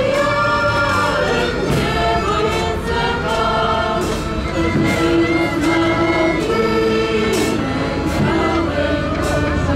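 Polish folk ensemble singing a Kraków-region (krakowiak) song together in chorus, with band accompaniment and a steady beat.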